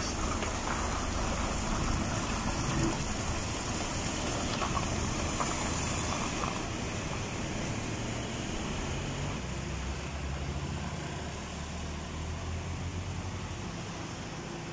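Diesel goods truck's engine running as it passes close by and pulls away uphill around a hairpin bend, its low engine note with road noise slowly fading. About nine and a half seconds in, the low engine note changes as another lorry's engine comes in from the upper bend.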